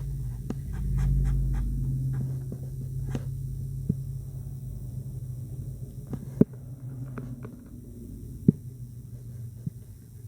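A dog making a low, drawn-out grumble that swells near the start and then carries on more softly, with a few sharp taps over it.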